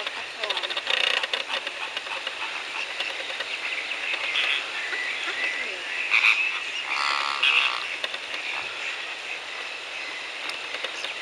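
A steady chorus of waterfowl calls from a mixed flock of ducks and other wetland birds, with louder croaking calls standing out around six and seven seconds in, one a rapid rattle.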